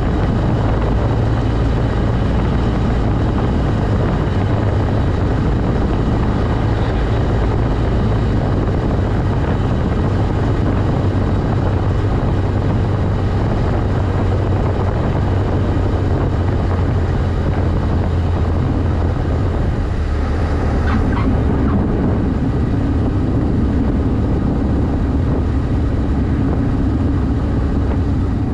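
Cessna 152's four-cylinder Lycoming engine and propeller running with a steady, loud drone; the tone shifts slightly about twenty seconds in.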